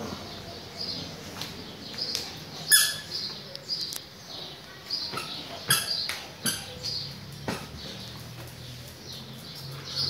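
Short high chirps about once a second from a caged chopi blackbird (pássaro-preto), with a few sharp taps and clicks as it moves about its wooden cage.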